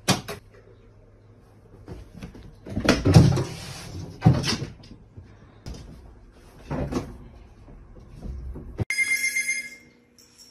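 A few sharp knocks and bangs with some heavy bumping, like cupboard or wardrobe doors and objects being knocked about. Near the end this gives way to a brief high ringing tone.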